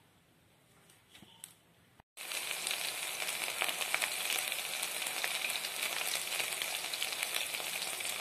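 Batter-coated pointed gourd strips sizzling as they deep-fry in hot oil in a wok, a dense crackling hiss. It starts abruptly about two seconds in, after a quiet start.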